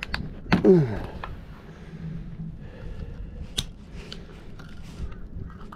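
Metal fishing pliers being taken from a tackle bag and worked in a walleye's mouth to free a jig hook: scattered sharp clicks and scraping over handling rustle. A brief falling vocal sound just under a second in is the loudest part.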